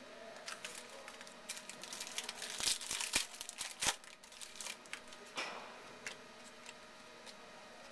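Foil wrapper of a football trading-card pack being torn open and crinkled by hand: a run of crackling rustles with a few sharp snaps in the middle, dying away after about five seconds.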